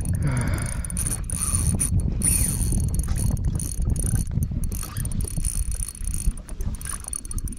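A small mechanism being worked with a whirring, ratcheting sound, over wind rumble on the microphone and water noise.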